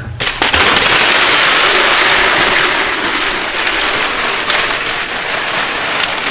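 Water running hard and splashing steadily onto a surface. It starts suddenly just after the beginning and eases a little toward the end.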